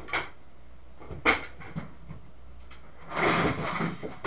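Handling noise from a plastic electric fan being picked up and moved on a workbench: a few light clicks, a sharp knock about a second in, then a short burst of rubbing and scraping near the end.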